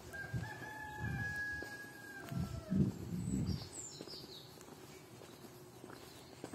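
A rooster crows once: one long held note that drops in pitch at the end. Footsteps thud on the lane underneath it, and a small bird chirps briefly around the middle.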